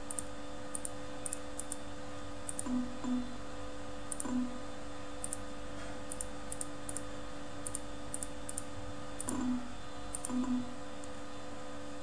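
Computer mouse button clicked again and again, sharp press-and-release clicks at irregular intervals, over a steady electrical hum.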